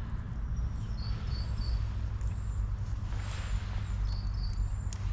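Small birds calling in short, repeated high chirps over a steady low rumble, with a brief rush of noise about three seconds in.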